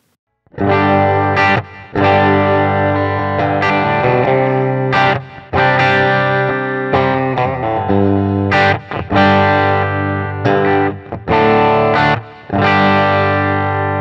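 Charvel San Dimas Style 1 electric guitar played on a clean tone, its humbuckers split to single-coil by the push-pull control. It strums a run of chords with short breaks between them, and the last chord rings out and fades.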